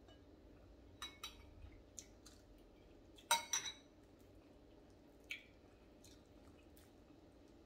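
Scattered light clinks of a spoon and dishes at a table: a few small ones early, a louder quick cluster of three about three seconds in, and one more about five seconds in.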